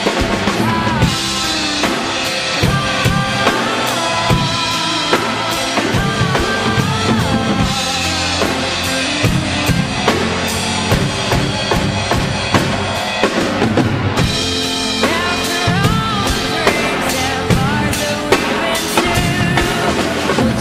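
A drum kit played along with a recorded song: bass drum and snare hits with cymbals, over the backing music.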